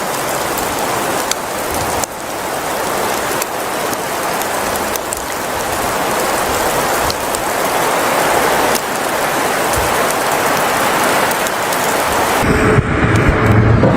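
Steady, dense rain-like storm noise with scattered small sharp ticks, like precipitation pattering on surfaces. About a second and a half before the end it cuts abruptly to a lower rumble.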